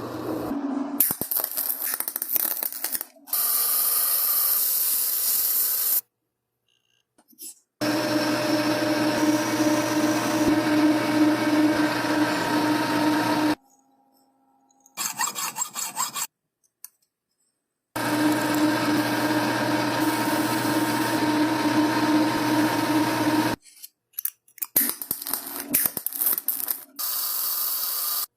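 Power tools in a series of short cuts: a motor-driven tool running at a steady pitch in two stretches of about six seconds, with shorter bursts of hissing and scraping noise in between, each cut off abruptly into dead silence.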